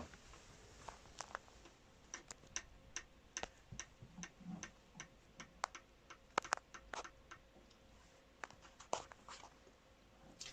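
Light metallic clicks and taps from hand work on the exposed valve gear of a Volvo D17C engine: a quick even run of clicks a couple of seconds in, then scattered clicks, a few sharper, for most of the rest.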